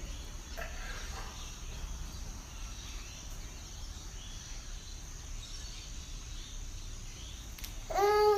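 Steady low background hum and faint high hiss. Near the end comes one short, high, bending vocal squeal.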